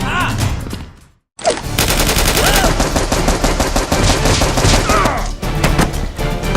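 Rapid, sustained gunfire sound effects over action music. They start after a brief silence about a second and a half in and thin out near the end.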